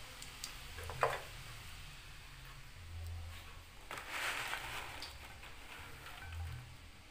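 Fried biji ketapang cookies tumbling out of a wire mesh strainer onto paper towel, a brief rattling rustle about four seconds in. A single sharp knock sounds about a second in.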